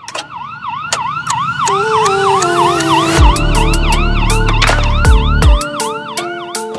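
Intro music with a siren sound effect: a siren wails up and down about twice a second over a stepping melody and ticking beats, and a heavy bass comes in about three seconds in.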